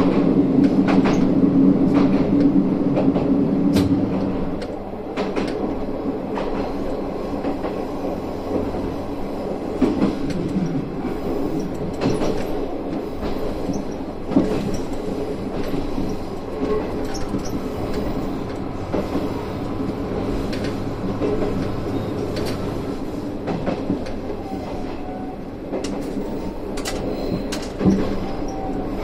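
Isumi 350 diesel railcar running on the line, its engine droning loudly under power and then easing off about four seconds in as the car rolls on. Wheels click and knock over the rail joints at irregular intervals.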